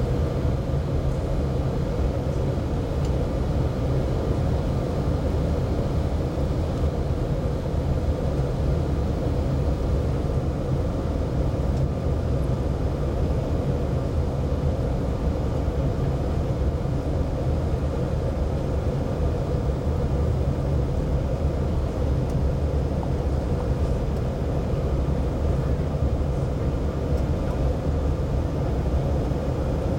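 Steady airliner cabin noise on final approach to landing: a constant low rumble of engines and airflow with a faint steady hum above it.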